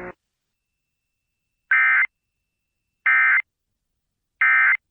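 Emergency Alert System end-of-message signal: three short, identical bursts of warbling SAME digital data tones, each about a third of a second long and about a second and a half apart, after a second or so of silence. They mark the end of the severe thunderstorm warning.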